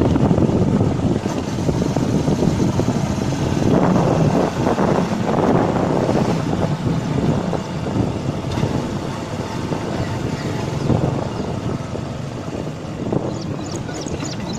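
Wind buffeting the microphone in heavy, uneven gusts, easing off a little toward the end.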